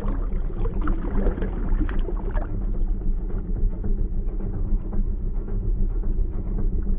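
Brief splashing and swishing in the first couple of seconds as a released blue catfish kicks off into the water, over a steady low rumble that runs throughout.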